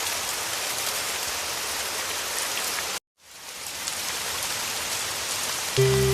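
Heavy rain, a steady even hiss. About three seconds in it cuts out abruptly to silence for a moment, then fades back in. Right at the end, music with low held notes comes in over the rain.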